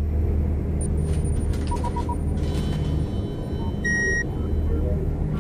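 Science-fiction spaceship sound effect: a steady low rumble, with three quick electronic beeps about two seconds in and a short higher bleep near four seconds.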